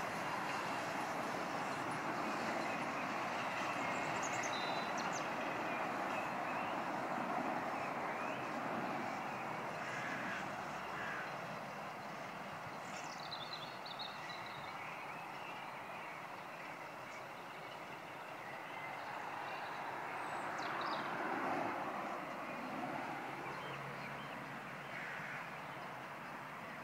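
Steam train running on the line at a distance, a steady even rumble of noise, with a few short bird chirps at intervals.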